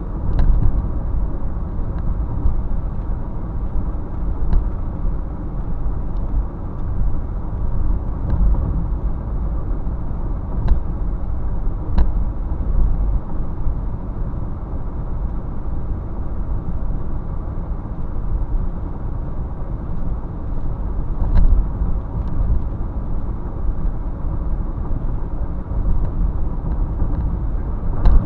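Steady low road and engine rumble heard from inside a moving car, with a few faint ticks.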